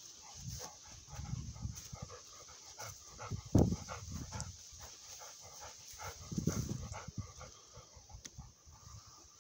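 A Labrador retriever panting as it walks, in a quick run of faint breaths. Low rumbles come and go, with one sharp thump about three and a half seconds in.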